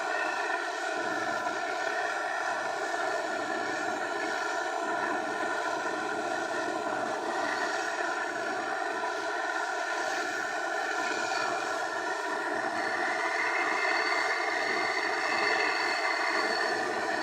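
A small engine running at a steady speed, its pitch rising a little about two-thirds of the way through.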